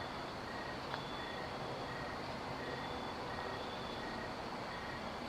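Night insects calling in regular pulses, two callers at different pitches, the lower one chirping about twice a second and the higher one about every second and a half, over a steady hiss of background noise. A faint click comes about a second in.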